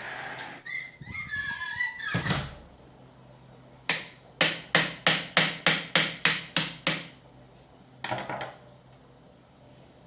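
A screeching, scraping stretch with sliding pitch. Then hammer blows in a quick, even run of about ten sharp strokes, roughly three a second. A short rasp comes near the end.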